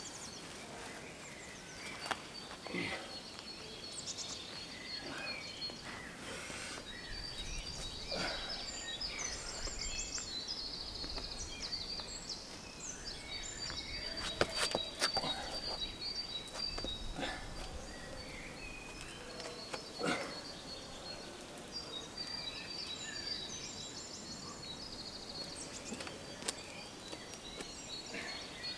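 Forest ambience with small birds chirping and trilling, many short high calls throughout. A few brief knocks and scuffs from the climber moving on the rock break in now and then.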